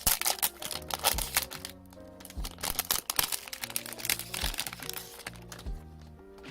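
Background music with a steady beat, over crinkling and rustling of packaging as a perfume box is unwrapped and opened.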